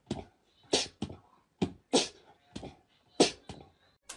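A series of about seven short, sharp percussive hits, unevenly spaced, with near silence between them.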